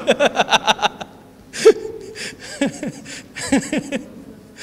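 A man laughing in rapid bursts of short falling pulses, in three bouts with brief pauses between.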